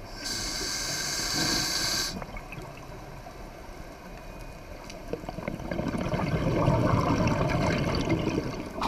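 Scuba diver breathing through a regulator underwater: a hissing inhale through the regulator for about two seconds, then, from about five seconds in, a longer bubbling, rumbling exhale that runs until nearly the end.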